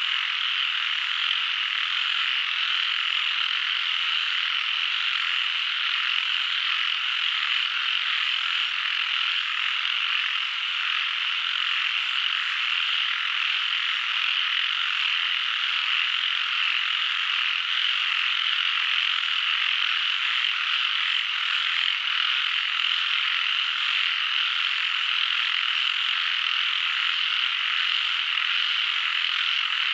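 A dense chorus of many frogs calling at once, forming a steady, even, fairly high-pitched wall of sound with no single call standing out.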